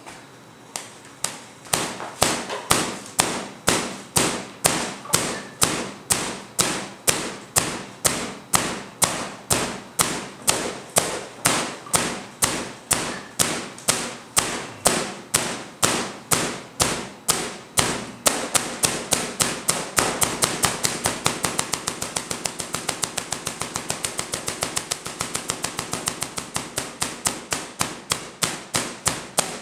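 A home-built three-phase coil firing, its discharges giving a steady series of sharp cracks. The cracks come about two a second at first and speed up to several a second from about 18–20 seconds in.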